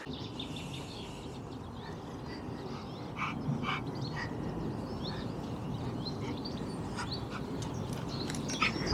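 Birds calling, with short calls and chirps scattered through, over a steady low rumble.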